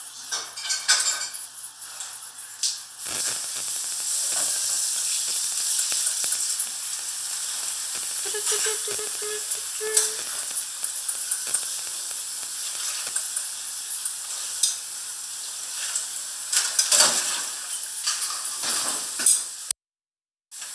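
Food sizzling in a pan: a steady frying hiss with scattered crackles, starting about three seconds in after a few utensil knocks. It cuts out for a moment near the end.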